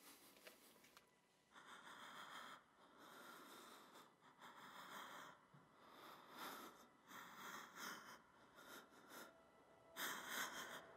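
Faint, ragged breathing and sniffing, in breaths of a second or two each, the loudest one near the end.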